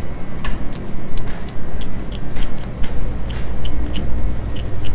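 Steady low hum of a store's freezer aisle, with scattered clicks and knocks from walking and handling, and a few short high chirps.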